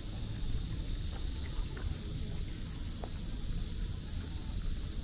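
Outdoor ambience of summer trees: a steady, high-pitched drone of insects over a low, steady rumble of wind and distant traffic.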